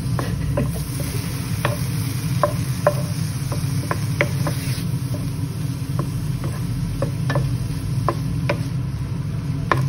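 Wooden spatula scraping and knocking against a non-stick frying pan with irregular sharp clicks, about one or two a second, as diced chicken sizzles in the pan without oil. A steady low hum runs underneath.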